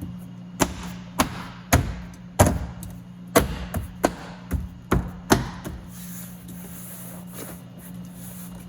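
About nine sharp knocks, roughly two a second, over the first five seconds or so, as the door skin is knocked back into place on the car door; then they stop.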